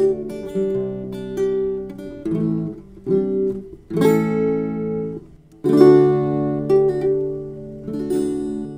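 Acoustic guitar music: strummed chords that ring out, with a short break about five and a half seconds in, then a last chord that starts to fade near the end.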